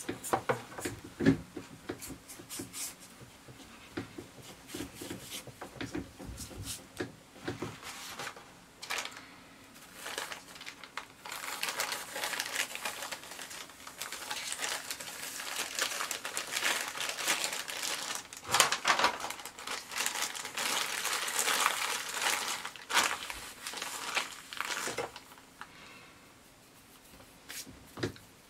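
Steel wool rubbed in short scratchy strokes over the flexible build plate's surface, scuffing it up. From about eleven seconds in comes a longer, louder stretch of plastic film being crumpled and crinkled, which dies away near the end.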